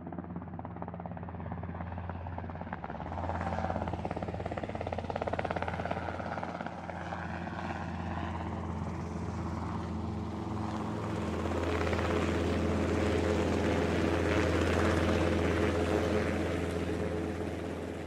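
Camera drone's propellers and motors buzzing steadily in flight: a low hum with several steady tones above it, growing louder about twelve seconds in.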